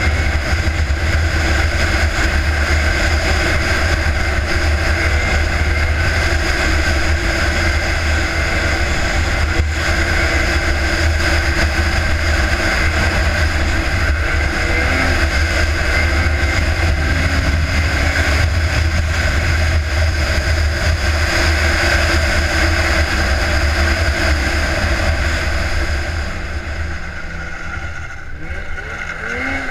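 Polaris racing snowmobile's two-stroke engine running hard at a steady high rev at speed, with wind buffeting the helmet-mounted microphone. About four seconds before the end it eases off and goes quieter, then its pitch climbs again as it revs back up.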